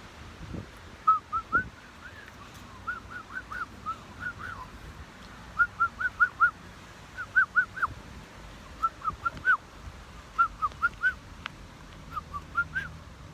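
A person whistling a bird-call impression: short rising-and-falling chirps in quick runs of three to five, the runs coming every second or so.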